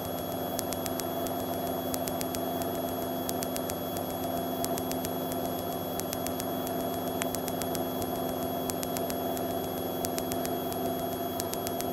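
Piper PA-38 Tomahawk's four-cylinder Lycoming engine running steadily at climb power just after take-off, heard inside the cabin.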